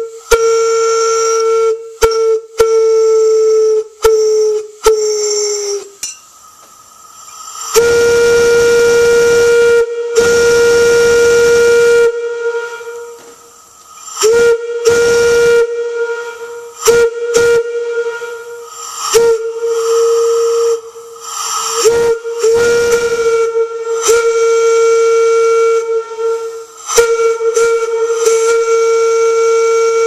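Lunkenheimer brass bell whistle for a Lombard steam log hauler blowing one steady, single-note tone with a rushing hiss. It sounds first as a quick series of short toots, then as longer blasts, some of which bend down in pitch as they start or stop.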